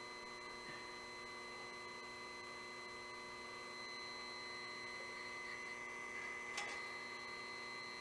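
Bandsaw-blade sharpener's electric motor running with a faint, steady hum. There is a single light click a little after six seconds in.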